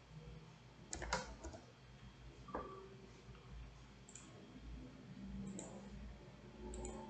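A few faint clicks of a computer mouse and keys over a low steady hum. There is a cluster of clicks about a second in and a single click about two and a half seconds in.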